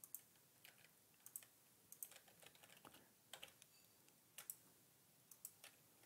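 Faint computer keyboard typing and mouse clicks: a scattering of short, separate clicks at an uneven pace, some in quick pairs.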